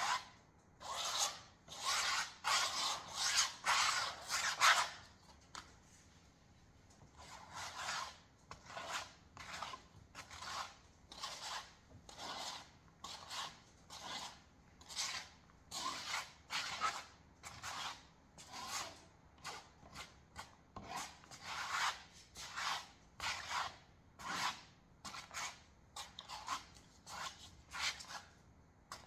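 Comb scraped across wet paint on a stretched canvas in repeated rasping strokes. The strokes come fast and close together for the first few seconds, then settle to a steady rhythm of a little more than one a second.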